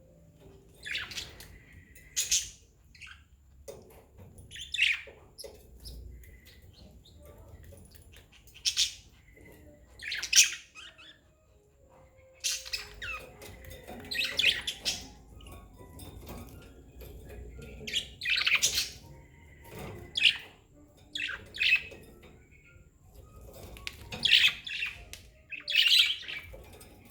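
Budgerigars calling: a string of short, harsh chirps and squawks, coming every second or two with short gaps between.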